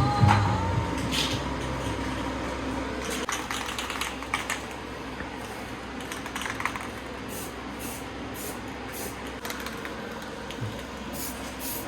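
Aerosol spray paint can hissing in short repeated bursts, about two a second, touching up paint on bare metal. Scattered clicks and light knocks come before it.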